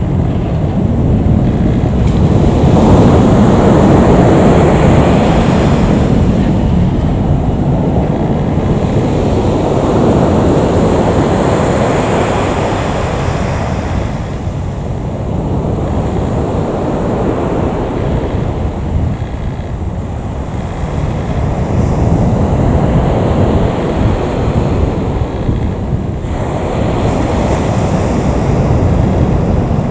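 Low rumbling noise that swells and fades every few seconds: wind buffeting the microphone over the sound of jet airliners taxiing on the airfield.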